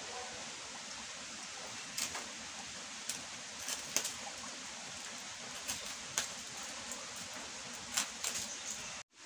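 Steady hiss of rain, with scattered light clicks and ticks from thin woven strips being pushed and tapped into place by hand. The sound cuts off abruptly near the end.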